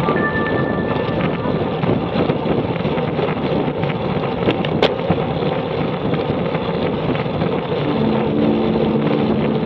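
Wind rushing over the microphone of a camera mounted on a moving road bike, a steady loud noise with tyre hum underneath. A single sharp click comes about five seconds in.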